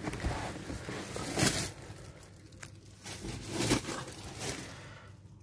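Rustling and handling noise as a person settles into a car's driver's seat, with two brief scuffs about a second and a half in and again near four seconds, fading quieter toward the end.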